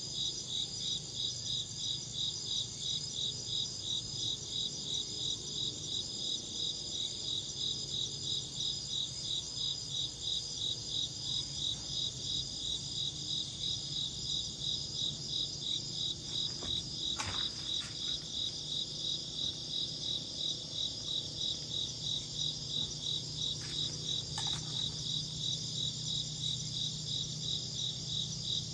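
Crickets chirping in a steady, rapid, evenly spaced rhythm of high-pitched pulses, with a faint low hum underneath.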